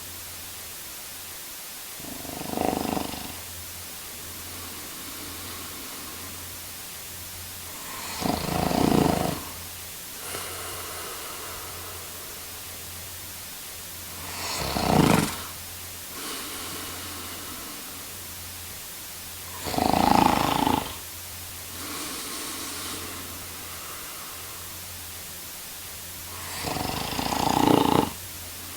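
A man snoring: five loud snores, roughly six seconds apart, with softer breaths between them over a steady background hiss.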